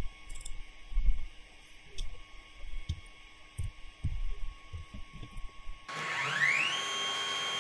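Stepper motors of a DIY CNC quilting frame driving the sewing-machine carriage 7.5 inches along the Y axis: about six seconds in, a whine starts, rises in pitch as the carriage speeds up, then holds steady. Before that there are only a few faint low knocks and clicks.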